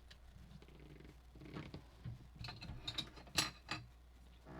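Trading cards and plastic card holders being handled: irregular soft rustles and small clicks, a handful of them through the second half.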